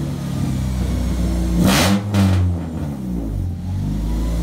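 Honda Accord engine with a header, its header-to-downpipe bolts freshly replaced, idling and blipped twice in quick succession about two seconds in, then dropping back to idle.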